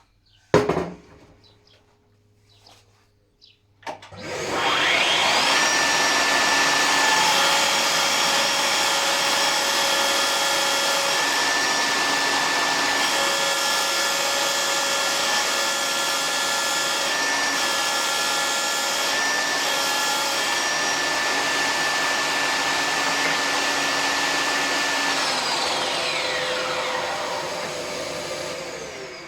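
A sharp knock, then a Mafell Erika 85 saw switched on: its motor and blade rise in a whine to full speed and run steadily through a ripping cut, the tone shifting as the blade cuts, before it is switched off and winds down with a falling whine near the end.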